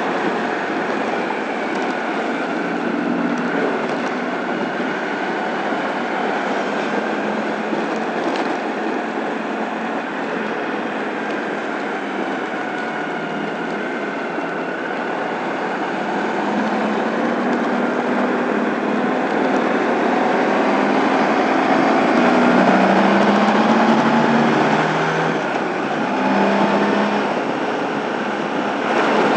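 Honda ST1100 motorcycle riding at freeway speed: a steady rush of wind and road noise, with the V4 engine's hum underneath. The engine note rises and gets louder about two-thirds of the way through as the bike speeds up.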